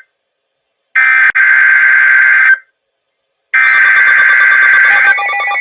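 Emergency Alert System SAME header on NOAA Weather Radio: harsh, screeching digital data bursts of about a second and a half each, separated by a second of silence. Two full bursts sound, the second ending about five seconds in. A quieter sound of several steady tones then starts just before the end.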